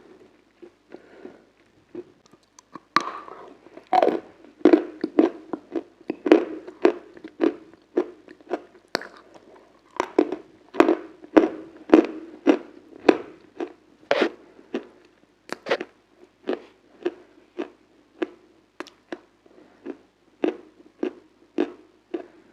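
Close-miked chewing: a mouth biting and crunching something hard and crunchy, described as ice cream, with sharp crunches about twice a second from about three seconds in.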